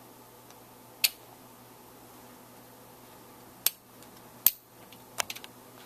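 Sharp metallic clicks of steel parts in an AR-15 lower receiver, four of them spread over several seconds with a few faint ticks after the last, as the trigger pin is pushed through the receiver and pushes the alignment punch out ahead of it.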